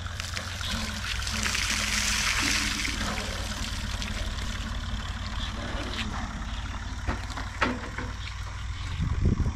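Water poured out of a plastic jug and splashing for a couple of seconds about a second in, over a steady low engine hum. A few sharp knocks and splashes come later.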